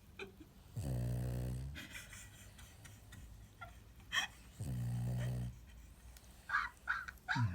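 A Boston terrier snoring in its sleep: two deep, rattling snores on the in-breath, each about a second long and about four seconds apart, with a hissing breath out and small snuffles between them.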